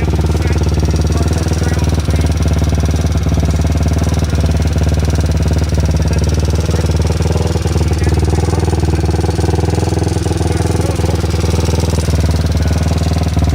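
2002 Honda 400EX's air-cooled single-cylinder four-stroke engine idling steadily.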